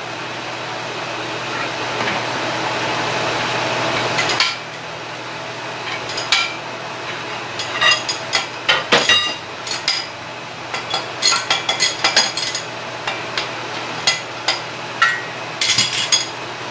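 A steady hiss that stops about four seconds in, then irregular metallic clicks and clinks of a hand wrench backing a bolt out of a steel bearing puller.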